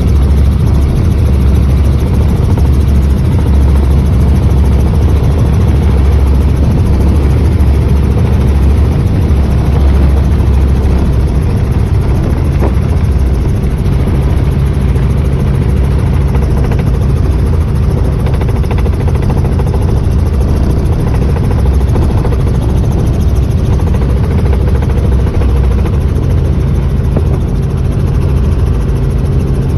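Helicopter in flight: loud, steady rotor and engine noise, strongest in the low range.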